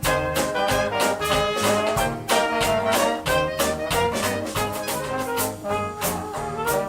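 Upbeat swing-style brass music, with horns over a steady drum beat.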